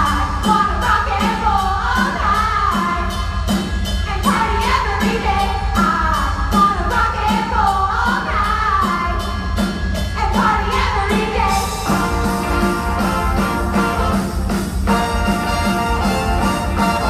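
A chorus of women sings a stage number over upbeat rock-and-roll backing music with a steady drum beat. About twelve seconds in, the moving melody gives way to a long held chord as the song builds to its finish.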